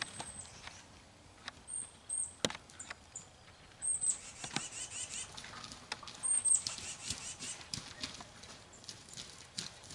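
A freshly shot wild turkey flopping in dry leaves and brush: scattered crackles, rustles and thumps as the dying bird beats its wings on the ground.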